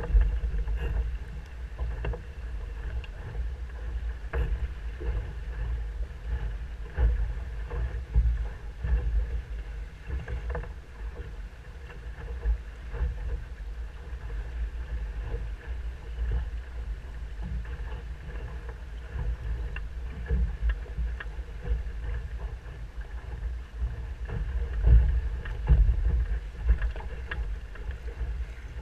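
Wind rumbling and buffeting on the microphone over water rushing and slapping against the hull of a Musto Skiff, a single-handed sailing dinghy, as it sails upwind and throws spray. The rumble is uneven and gusty throughout.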